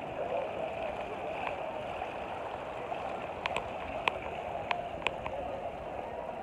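Steady rushing, gurgling outdoor noise, with a handful of short, sharp clicks about halfway through.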